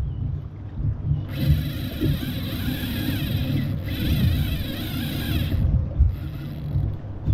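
Wind buffeting the microphone on an open boat, a low uneven rumble. From about a second in, a loud hiss runs for about four seconds, breaking off briefly in the middle.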